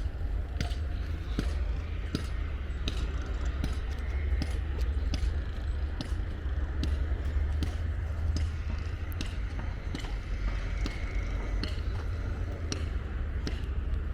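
Footsteps at a steady walking pace, about one to two a second, over a continuous low rumble.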